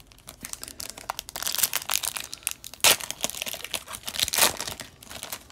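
Foil wrapper of an O-Pee-Chee Platinum hockey card pack crinkling as it is handled and torn open, with two louder rips about three and four and a half seconds in.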